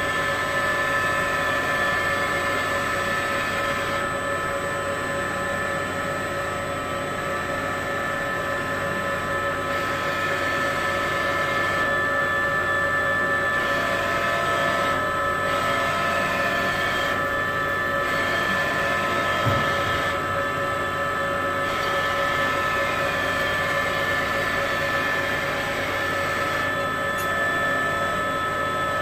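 Fryer ET21 CNC lathe powered up, a steady machine hum and whine made of several held tones over an even whir. A single soft knock about two-thirds of the way through.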